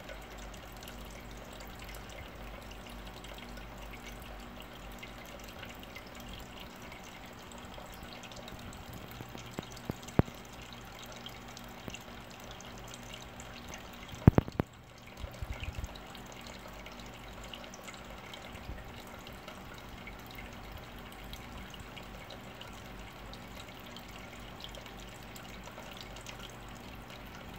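Steady trickling and dripping of water in an aquarium, with a faint hum under it. A sharp knock sounds about ten seconds in, and a louder double knock with a few small taps comes about fourteen seconds in.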